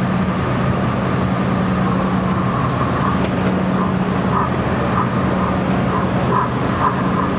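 Model railway steam locomotive and goods train running slowly along the layout, heard as a steady hum, with a regular soft beat about twice a second from about three seconds in, over the constant murmur of an exhibition hall crowd.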